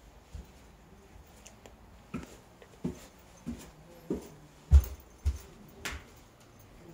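Footsteps going down a wooden staircase: about seven dull thuds a little over half a second apart, starting about two seconds in, with one step about two-thirds of the way through louder than the rest.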